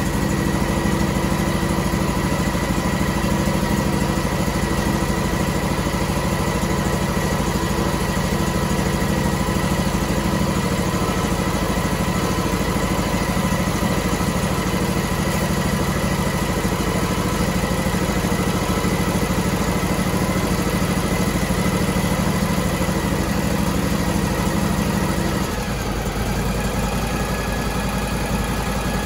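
Briggs & Stratton 21 hp air-cooled V-twin engine, fitted to an outboard, running steadily on its newly replaced governor, then dropping to a lower, slower idle about three-quarters of the way through.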